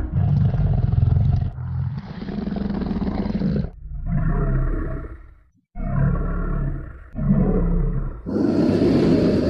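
Kaiju (giant monster) roar sound effect: a string of about five or six deep roars with short breaks between them, one cutting off abruptly about halfway through. The last roar, near the end, is harsher and hissier.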